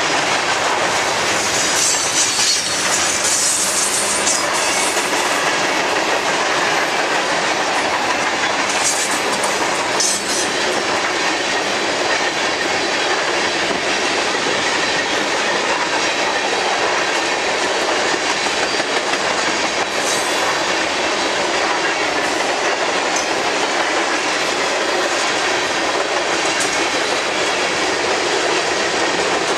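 Freight train cars, mostly tank cars, rolling past close by: a steady loud rumble and clatter of steel wheels on the rails, with a high wheel squeal about two to four seconds in.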